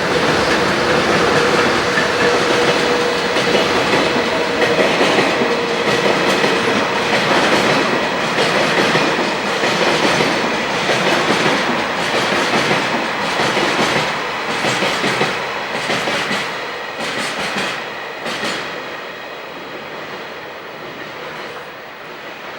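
Freight train hauled by a JR Freight EH500 electric locomotive passing close by: a steady rumble of wagons with wheels clacking over rail joints, fading away over the last several seconds.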